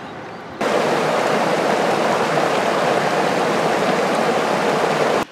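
Fast river water rushing over rocks: a loud, steady rush that starts abruptly about half a second in and cuts off suddenly near the end.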